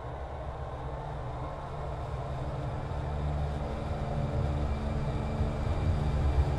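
A low rumbling drone with sustained tones layered over it, swelling steadily louder.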